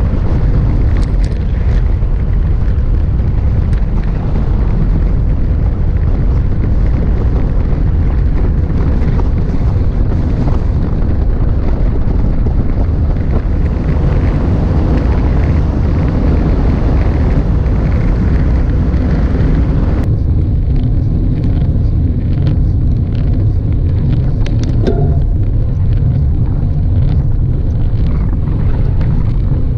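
Wind buffeting the microphone of a camera riding on a moving road bike: a steady, loud low rumble with hiss over it. About two-thirds of the way through, the sound changes suddenly: the hiss thins and faint light ticks come through.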